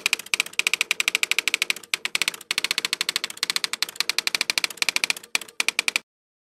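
Typing sound effect: rapid key clicks, about ten a second, with two short pauses, stopping suddenly near the end.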